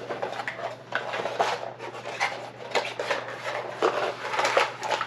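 Cardboard gift-set box being handled: its lid and insert rubbing, sliding and knocking on a wooden table in a run of irregular scrapes and taps.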